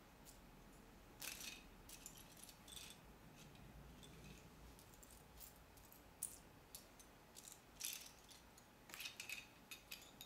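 Small plastic Lego pieces clicking and rattling as they are handled, in a few short, faint clusters of light clicks.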